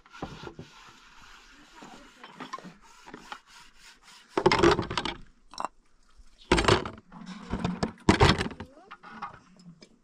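Objects being handled: quiet scraping and rustling, then three loud clatters in the second half.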